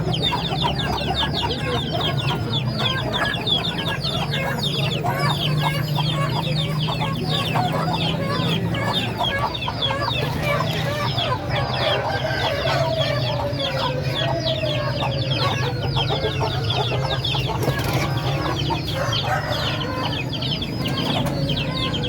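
A flock of chickens clucking and chirping, with many rapid high chirps overlapping throughout and a long falling call near the middle.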